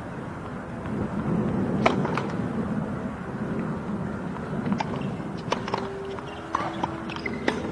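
Steady low outdoor rumble with a few sharp, irregularly spaced taps of a tennis ball being bounced on a hard court before a serve.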